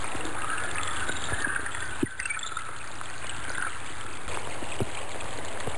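Running water of a stream flowing steadily, with a brief dip in level about two seconds in.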